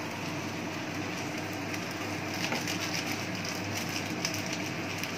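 Noodles, potato and onion sizzling steadily in a pan on a gas stove. From about halfway through, light scrapes and taps of a wooden spatula stirring in the masala.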